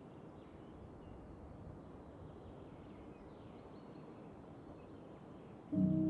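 Faint steady background ambience with a few faint, short high chirps now and then. Near the end, music with sustained low tones starts suddenly and becomes the loudest sound.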